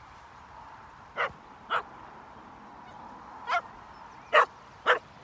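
A dog barking: five short barks at uneven spacing, the last two the loudest.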